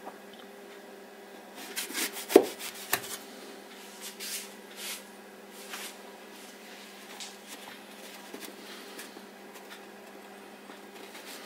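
Handling of a metal loaf tin with two baked toast loaves as its divider is worked loose: scraping and clicks, with a burst of knocks about two seconds in, the loudest a sharp knock, then lighter rubbing and ticks.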